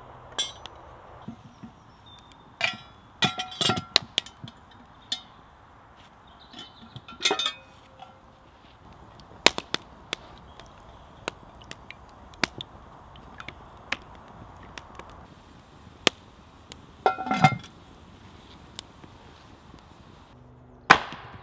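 Wood fire crackling with scattered sharp pops, and a few clinks of a cast-iron dutch oven and its lid being handled, each with a short metallic ring.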